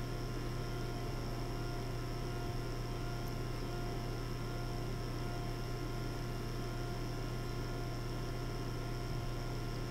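A steady low electrical hum with a few fainter higher tones over a faint hiss.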